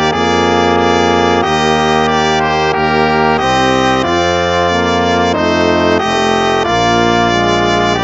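Instrumental hymn music with a brass sound, slow held chords changing every second or so.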